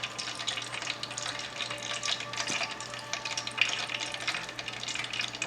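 Hot cooking oil crackling and sizzling in a pan, a dense run of fine pops, over a steady low hum.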